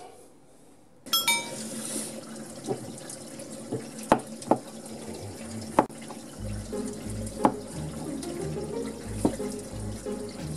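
Kitchen knife cutting asparagus spears on a cutting board: a few sharp, irregularly spaced knocks of the blade meeting the board over a steady hiss.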